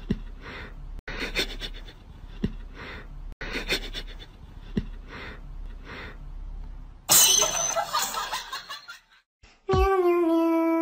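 A person laughing in breathy bursts, with a sudden louder outburst about seven seconds in. Near the end a steady hummed tune begins.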